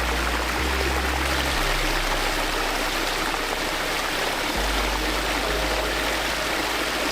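Backyard pond waterfall: water running and splashing steadily over the rocks, under a low music bass line whose notes change every few seconds.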